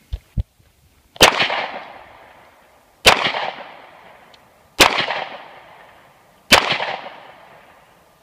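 Hi-Point semi-automatic pistol fired four times at a steady pace, about one shot every 1.8 seconds, each report echoing away behind it. Two light clicks sound just before the first shot.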